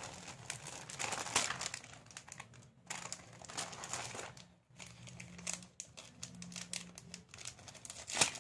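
Irregular crinkling and rustling of something being handled close by, broken by a few short pauses.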